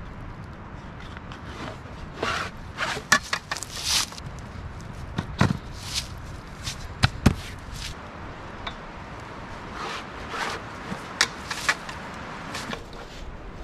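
Metal end bars of a folding FEMA emergency cot being fitted into the frame corners by hand: scattered sharp metal clicks and knocks, with the fabric rustling and scraping in two spells and footsteps shuffling on dry pine needles and leaves.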